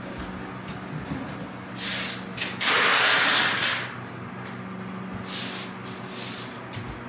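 A loud rushing hiss lasting about a second, near the middle, over a steady low hum, with a shorter hiss just before it.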